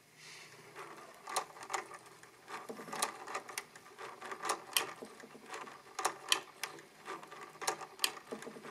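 Archimedes Model D mechanical calculator's crank being turned, its stepped drums rotating, with irregular clicking and clattering from the mechanism starting about a second in.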